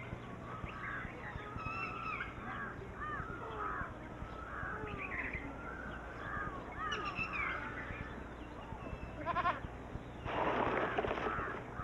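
Forest birds chirping and calling throughout, with a goat bleating once about nine and a half seconds in, followed by a harsh noisy rush lasting about a second. A faint steady low hum lies underneath.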